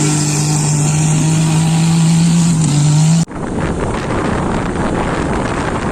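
A motor running at a steady low pitch that steps up slightly, then an abrupt switch about three seconds in to loud, even rushing noise.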